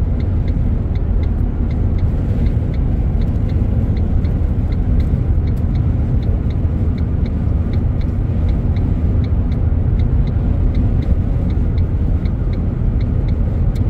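Steady road and engine rumble inside a car's cabin driving at highway speed, with a light tick about twice a second that fits the car's hazard-flasher relay clicking.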